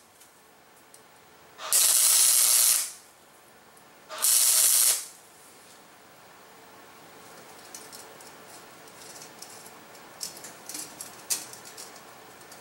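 Wire-feed welder tacking a bolt onto square steel tubing: two short bursts of crackling arc hiss, about a second each, the first about two seconds in and the second about four seconds in. Faint scattered clicks follow.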